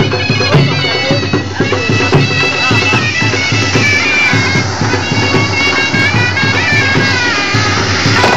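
Loud band music: a reedy wind-instrument melody over a steady drum beat of about two strokes a second.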